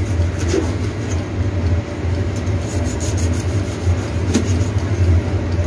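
A Chinese cleaver slicing through cooked steak and knocking on a plastic cutting board, with a sharper knock about four seconds in, over a steady low hum.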